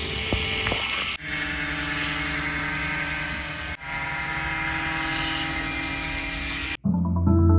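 Electric RC model airliner's motors and propellers running with a steady whirring hum, in short clips that cut abruptly twice; near the end it cuts to music.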